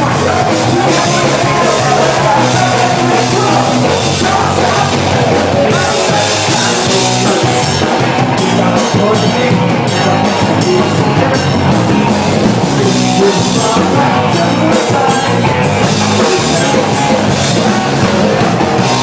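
Loud rock music with drums and singing.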